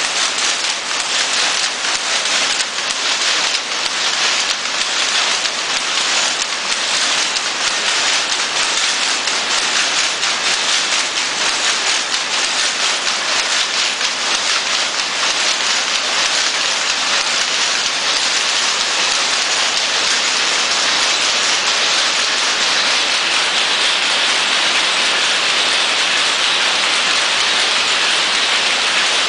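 Rapier loom with a jacquard machine running at speed: a loud, dense, continuous clatter of rapid ticks, turning into a steadier hiss in the last few seconds.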